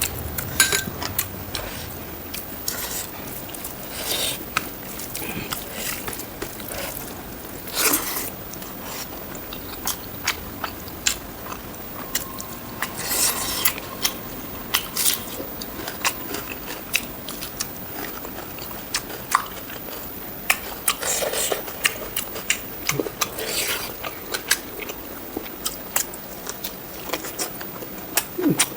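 Close-miked chewing and biting of pork ribs with rice, with many irregular sharp mouth clicks and smacks.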